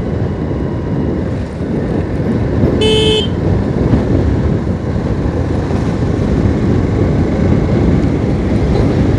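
Motorcycle riding at a steady pace, its engine and road noise making a steady low rumble. About three seconds in, a horn beeps once, briefly.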